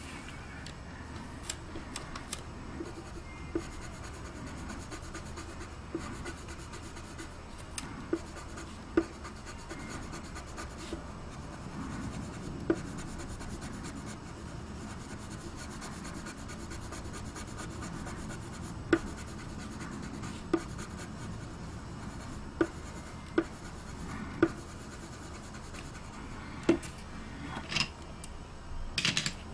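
Coloured pencil shading on drawing paper, a steady rubbing of the pencil across the paper, with scattered sharp clicks and a louder cluster of them near the end.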